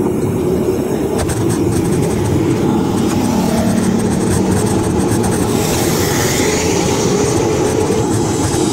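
Wind buffeting the microphone while riding fast along a road, a dense rumble with road and vehicle noise. A hiss swells for a couple of seconds around the middle.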